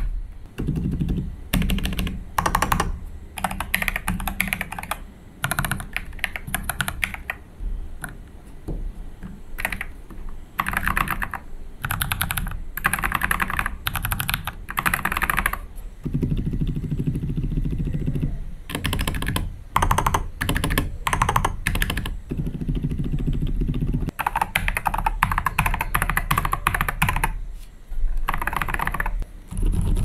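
Typing sound test on a mechanical keyboard fitted with Outemu Silent Peach linear, Durock Medium Tactile and TTC Flame Red switches, first with Interstellar KCA keycaps and then, about halfway through, with Salmon XDA keycaps. Bursts of key clacks come with short pauses. Some stretches are duller and quieter: the Outemu Silent switches, which bottom out softly and sound very quiet.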